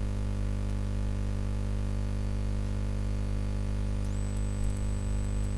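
Steady electrical hum, a low buzz picked up by the recording, with a faint high-pitched whine that sets in about four seconds in and a click near the end.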